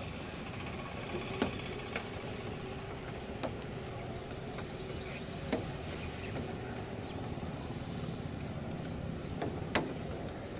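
Steady rush of rain and wind over a low hum of distant traffic, with a handful of sharp ticks, the loudest near the end.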